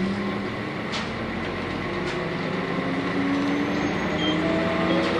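Inside a Nissan Diesel UA city bus with a compressed-natural-gas PU6 engine, pulling away and accelerating. The engine note rises steadily in pitch as it gathers speed.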